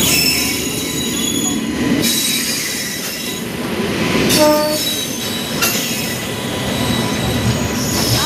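Indian Railways express train, an electric locomotive hauling LHB coaches, rolling slowly past with a steady wheel rumble and thin, high wheel squeals. A brief tone sounds about four and a half seconds in.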